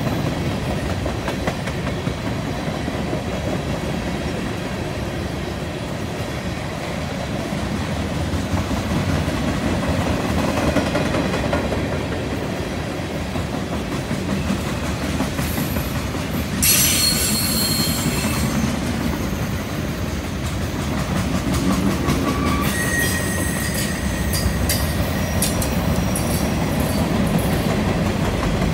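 Freight cars of a passing train rolling on a curve: a steady rumble of wheels on rail. Wheel flanges squeal briefly a little past halfway through, and again in several shorter high squeals near the end.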